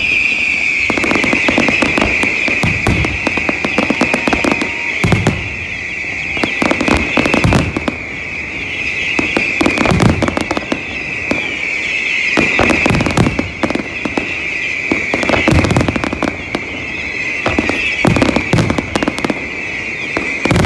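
Fireworks display: clusters of sharp bangs and crackles from bursting shells and rising comets, coming every two to three seconds. A continuous high-pitched whistling hiss runs under the bangs.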